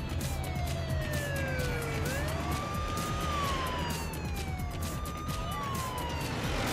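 Police siren wailing, its pitch falling slowly and jumping back up, about twice, over background music with a steady beat.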